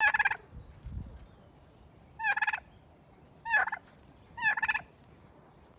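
Domestic turkey tom gobbling four times, each gobble a short rapid rattling call, with the last three coming about a second apart.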